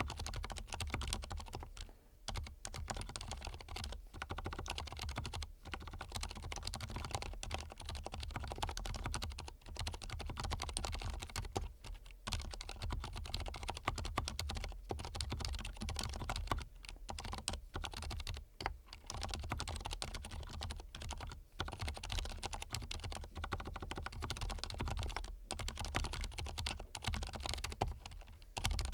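Continuous fast typing on a mechanical keyboard fitted with lubed Cherry Silent Red linear switches, a quick run of soft key clicks broken by a few short pauses.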